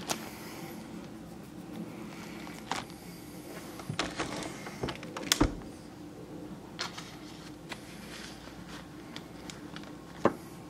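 Scattered clicks and knocks over a steady low hum, with a small cluster of louder knocks about five seconds in and one more sharp knock near the end.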